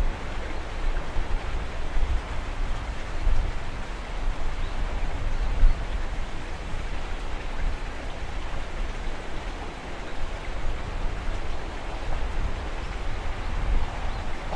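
Wind buffeting the microphone: a steady rushing hiss with an uneven low rumble. Near the end the running noise of an approaching Shinano Railway 115-series electric train starts to come up under it.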